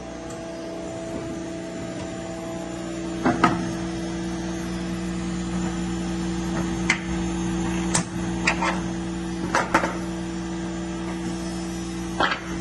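Steady electrical hum with several short, sharp clicks and knocks as cut plastic parts are handled on the wooden bed of a CNC machine.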